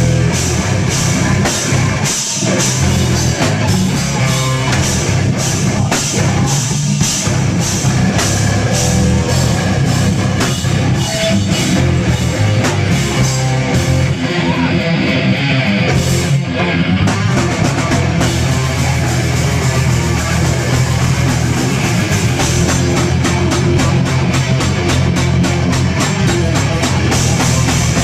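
Live heavy rock band playing loud: electric guitars, bass guitar and a drum kit. Steady cymbal and drum hits drive most of it, with the cymbals dropping out for a few seconds around the middle before the full band comes back in.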